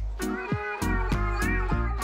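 Background music with a steady, danceable beat, with a domestic cat's meow in the first half.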